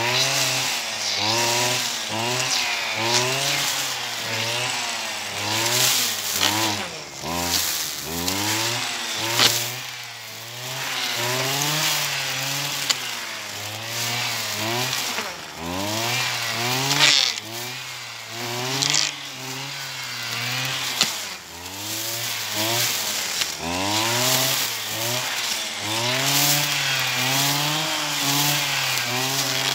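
Brush cutter's small engine running, revving up and down over and over as the cutting head is swung through tall brachiaria grass, with a few brief sharper swishes as it bites into the grass.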